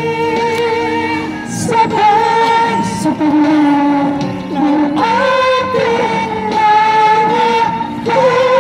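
Karaoke: a man singing into a microphone over a backing track, holding long notes.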